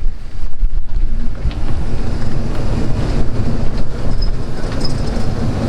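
Wind buffeting the microphone of a moving open electric buggy, a loud, uneven low rumble with some road noise.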